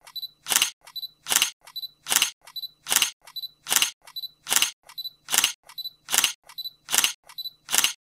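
Single-lens reflex camera shutter firing again and again, about one shot every 0.8 seconds, each a faint tick followed by a louder snap.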